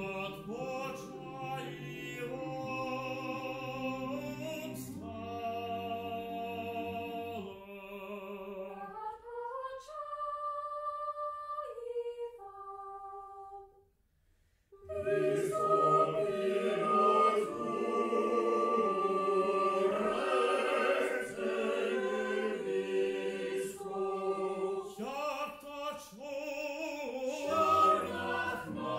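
Mixed choir singing unaccompanied in Ukrainian, slow held chords moving between voices. About halfway through the sound thins to a few high voices and breaks off for a moment, then the full choir comes back louder.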